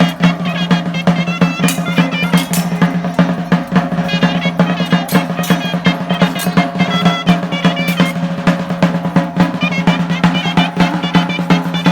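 Chirimía ensemble playing: fast, dense drumming under a high, ornamented reed-pipe melody, with a steady low tone sounding throughout.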